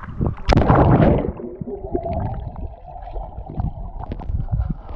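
A splash as the camera plunges into the water about half a second in, then muffled underwater rushing and gurgling with scattered low bumps against the camera.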